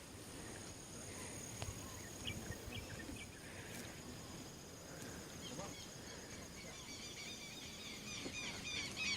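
Outdoor ambience: a steady high insect drone. About seven seconds in, a bird starts calling in quick repeated arching notes that grow louder.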